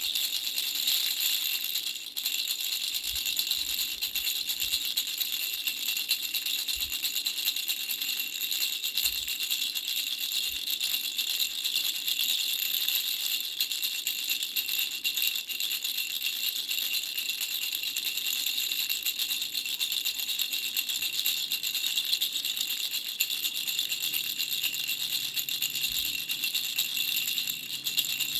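A baby's toy rattle with three flower-shaped bells, shaken without a break: a dense, even jingling with bright high ringing tones.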